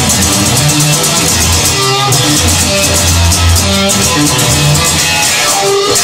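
Instrumental rock music: electric guitar over bass and drums, with a steady beat.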